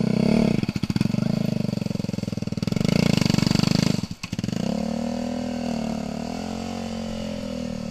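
Kart cross buggy's motorcycle engine running under throttle as it crawls over a wooden plank bridge. It revs up louder about two and a half seconds in, cuts out briefly just after four seconds, then runs on steadier at lower revs.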